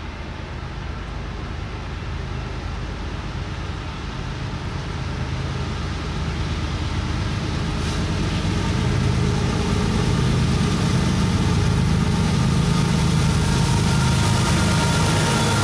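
Diesel freight locomotives, led by a Norfolk Southern unit, approaching with a low engine drone that grows steadily louder as the train nears.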